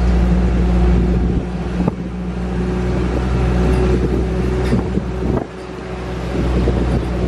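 Engine of an open-air tour truck running as it drives through town traffic, with a steady low hum that drops in level about a second and a half in and again about five seconds in. A few knocks and rattles from the truck, and wind buffets the microphone.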